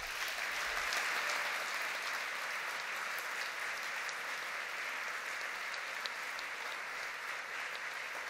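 Large audience in a hall applauding, a steady wash of many hands clapping at a talk's close.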